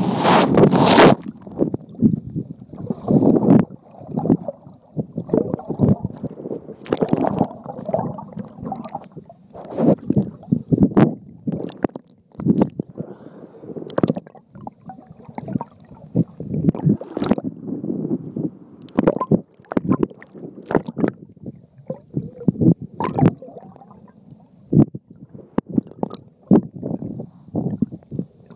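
Water churning around a camera held underwater: muffled, irregular sloshing and gurgling surges with sharp knocks and clicks here and there. A loud rush of noise fills the first second.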